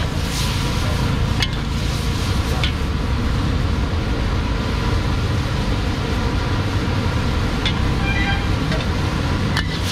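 Gas wok burner running with a steady low rush under a steel wok of frying food. A metal spatula scrapes and clicks against the wok a few times.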